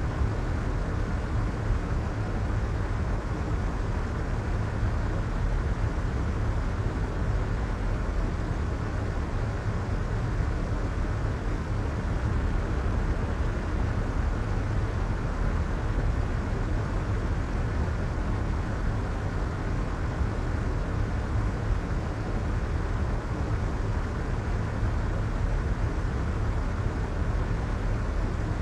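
Steady soft white noise for sleep: an even, unchanging hush, muffled and weighted to a deep low rumble, with little hiss at the top.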